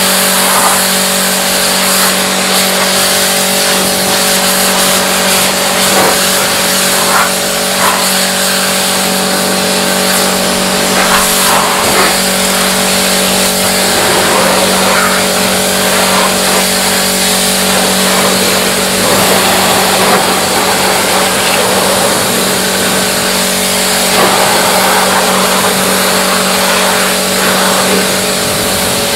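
A machine running steadily: a constant hum with a loud hiss over it.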